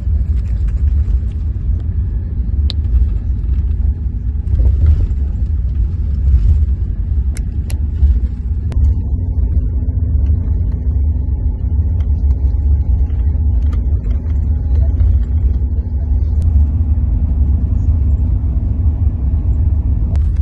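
Loud, steady low rumble of a sleeper bus, heard from inside its cabin, with a faint steady hum above it and a few small clicks.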